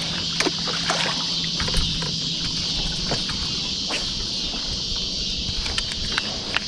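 Baitcasting reel being cranked and worked, with scattered sharp clicks, over a steady high hiss and a low boat-motor hum that drops away about a second and a half in.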